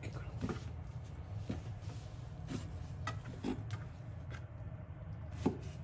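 Kitchen knife slicing raw beef large intestine on a plastic cutting board: scattered soft taps and clicks as the blade meets the board, the sharpest a little before the end, over a steady low hum.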